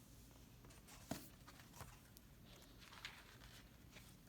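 Near silence: room tone with a low hum and a few faint, short clicks.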